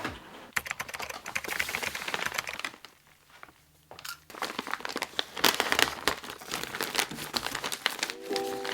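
Packaging crinkling and rustling as it is handled and unwrapped, in bursts with a short pause partway through. Music comes in near the end.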